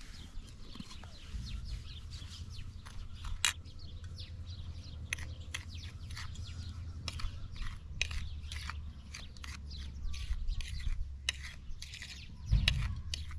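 Metal spoon clicking and scraping against a plate in short, irregular strokes while mixing breading, over a steady low rumble. There is a louder low thump near the end.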